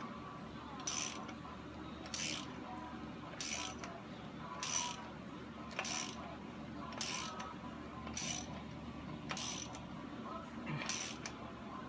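Hand ratchet wrench clicking in short strokes, about one every second and a quarter, as it turns the bolt of a sprocket installer tool to press a crank sprocket onto the crankshaft.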